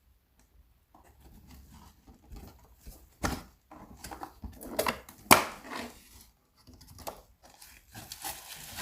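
Unboxing sounds: plastic packaging crinkling and tearing as parts are taken out of the box, with scattered knocks, two sharp ones about three and five seconds in.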